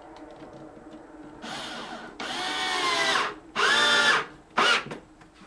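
Cordless drill/driver driving screws into a pine board corner joint: four runs of the motor whine, the two loudest between about two and four seconds in, and a brief final burst as a screw seats.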